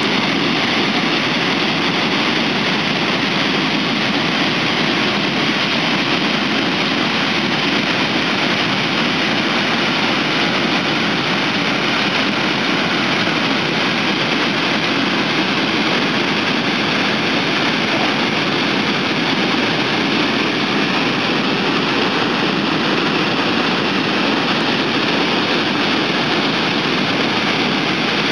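Waterfall and rapids rushing: a loud, steady, unbroken noise of churning white water.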